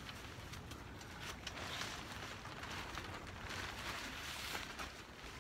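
Pop-up canopy being pushed up from underneath: its tarp top rustles and crinkles as the folding frame unfolds, with a few faint clicks.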